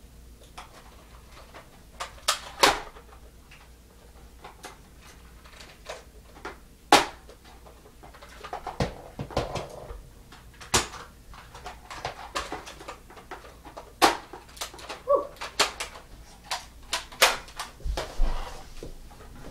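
Irregular sharp clicks and knocks, a dozen or more at uneven intervals, some louder than others.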